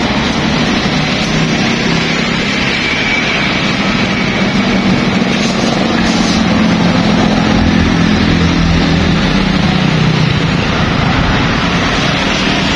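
Steady street traffic noise: motorbike and truck engines running past on the road.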